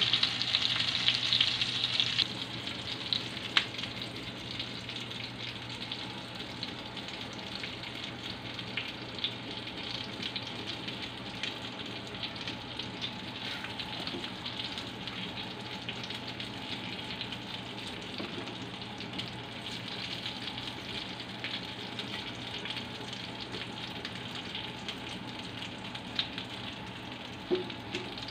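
Chicken and pork pieces sizzling as they fry in a nonstick frying pan, louder for the first two seconds and then steady. Occasional light knocks of a wooden spatula against the pan as the pieces are turned and lifted out.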